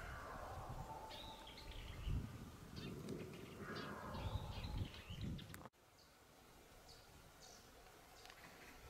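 Outdoor ambience of small birds chirping, short calls scattered over the first half, under an uneven low rumble. About halfway through the level drops suddenly to a quieter background with a few faint chirps.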